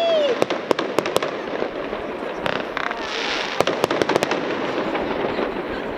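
Fireworks going off: a run of sharp pops and bangs in the first second and another cluster around four seconds in, over a steady crackling hiss.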